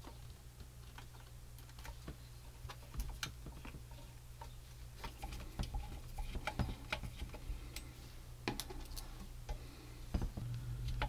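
Scattered light clicks and ticks of small plastic and metal kit parts being handled and screwed together, more of them in the second half, over a faint low hum.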